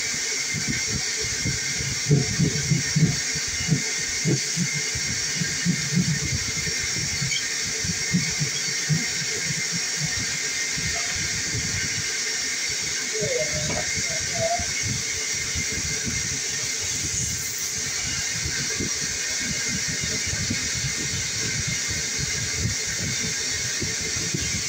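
Vacuum cleaner running steadily with a hiss, its hose held up to a hole cut in a drywall ceiling, sucking up the debris. A run of knocks and rattles from about two to nine seconds in.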